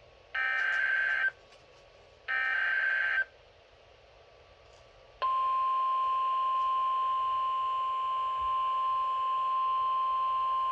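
Emergency Alert System SAME header, the data bursts that open the alert: two harsh buzzing bursts about a second long, a second apart. About five seconds in, a steady single-tone NOAA Weather Radio attention signal starts and holds.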